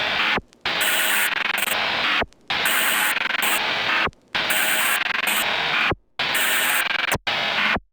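Noise-based electronic music: dense, harsh static-like noise in long blocks, cut off by brief silent gaps about every one to two seconds.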